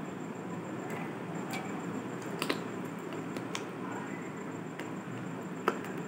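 Eating rice and chicken curry by hand off a steel plate: soft squishing of fingers working the rice, then eating sounds, with a few sharp clicks, the loudest near the end, over steady background noise.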